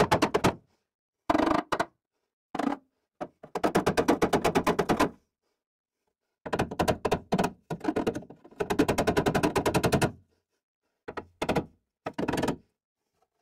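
Pneumatic air hammer rattling against the sheet steel of a pickup's bedside in short bursts of rapid, even blows, stopping and starting about eight times. It is being used to work a pushed-in bottom bed corner back out into line with the cab corner.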